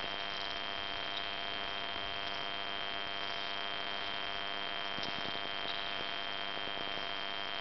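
Steady hiss with a constant thin high-pitched whine and faint hum underneath, unchanging throughout: the recording's own electronic noise, with no other sound standing out.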